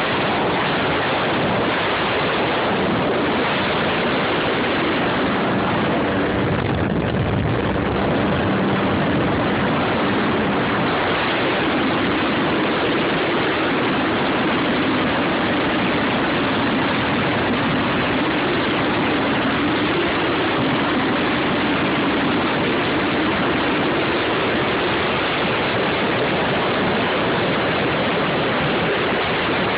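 Jet ski engine running steadily under rushing water noise.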